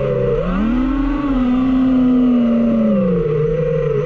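DJI FPV drone's electric motors whining, several close pitches together; the pitch rises steeply about half a second in as the throttle goes up, holds high, then drops back about three seconds in.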